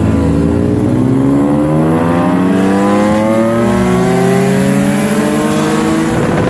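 Honda car engine at full throttle, accelerating hard from a standstill, its pitch climbing steadily with one short dip about four seconds in, like a gear change.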